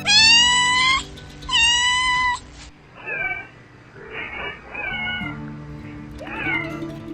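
Kitten meowing: two long, loud meows in the first two seconds, then a string of shorter, higher mews that fall in pitch, over background music.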